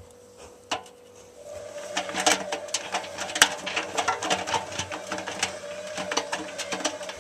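Zanussi washing machine's drum motor starting up about a second and a half in: a steady hum with many irregular clicks and rattles as the drum turns. A single click comes just before it.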